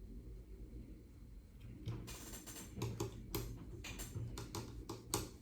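Microfiber cloth wiping an iPad Mini LCD panel: a quiet run of short, irregular rubbing strokes and handling noises starting about two seconds in, over a low steady hum.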